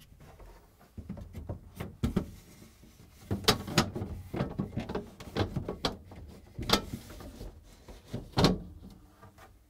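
Plastic refrigerator shelf frame being worked into its supports on the plastic liner: a run of irregular plastic knocks and clicks, with the sharpest strokes about two seconds in, around the middle and near the end.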